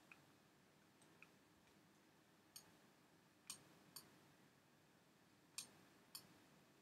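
Faint, sharp clicks of a computer mouse button, about five of them spread irregularly over a few seconds, against near-silent room tone.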